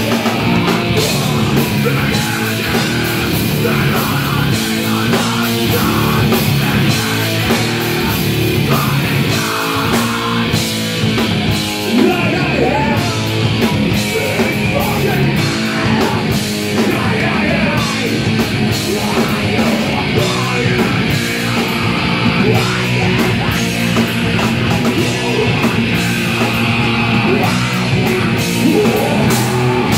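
A live punk band playing loud: electric guitar, bass guitar and drums with cymbals.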